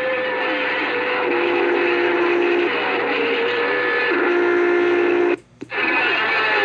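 CB radio receiver putting out open-channel hiss and static laced with steady whistling heterodyne tones from overlapping distant stations. A lower tone keeps switching on and off, and the noise drops out for a moment about five seconds in.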